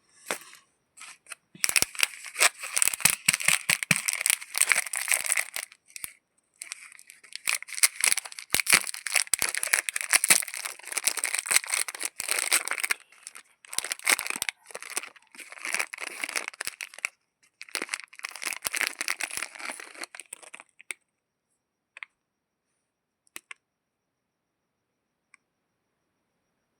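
A chocolate bar wrapper being torn open and crinkled, in long crackly stretches broken by a few short pauses. Near the end it gives way to a few faint isolated clicks.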